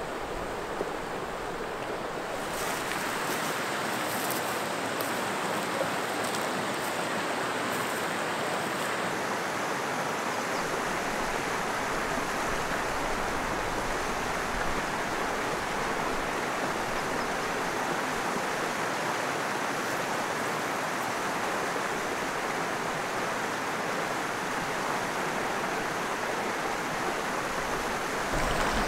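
Steady rush of water running through a brook's rapids, an even hiss that grows slightly louder about two seconds in.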